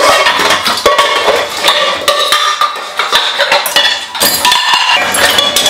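Metal pots and pans clattering and clanking against each other as they are rummaged through, a quick run of irregular knocks with short metallic ringing.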